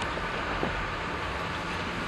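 Eizan Electric Railway electric railcar running along the track: a steady running noise with a faint low hum that grows a little stronger near the end.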